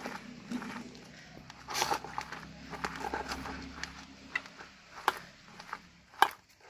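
A hand mixing cut sponge gourd (luffa) pieces coated in mustard-poppy paste and oil in a stainless steel bowl. It makes irregular soft clicks and rustles as the pieces and fingers knock against the bowl, and the sharpest click comes a little before the end.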